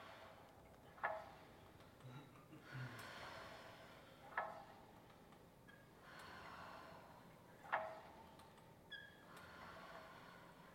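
Pilates reformer carriage, set on two red springs, pushed out and drawn back home in steady reps, with a short sharp sound about every three seconds, faintly. Soft breathing of the exerciser runs between the reps.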